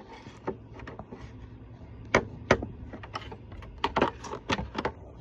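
1993 SMC U-42 ceiling fan running on medium with a low steady hum, under a series of irregular clicks and knocks, the sharpest about two seconds in and a cluster near four seconds.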